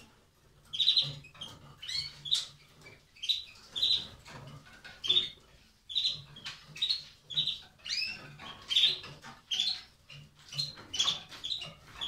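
Caged canaries giving short, high chirping calls over and over, about one or two a second.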